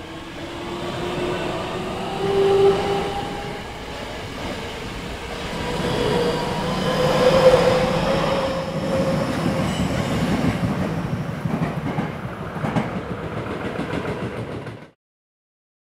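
Tokyo Metro 10000 series electric train running past close by: the whine of its IGBT-VVVF inverter and induction motors rises in pitch as it accelerates, over the rumble of wheels on rail and a few clacks over rail joints. The sound cuts off suddenly near the end.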